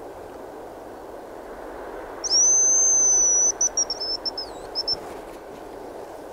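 Hazel grouse decoy whistle blown close by, imitating the male's song: a loud, thin, high whistle held for about a second, then a few short broken notes and a falling trill.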